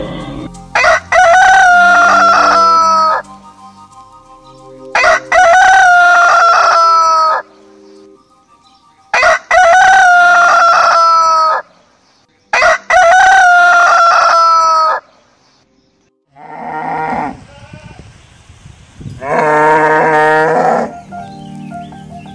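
Rooster crowing four times: long, loud crows of about two seconds each, spaced about four seconds apart. Near the end a deeper, lower-pitched animal call follows.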